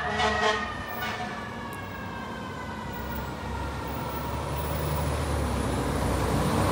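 FDNY fire apparatus responding with its siren sounding; the siren tone falls slowly in pitch over the first few seconds. The truck's engine rumble grows steadily louder as it approaches.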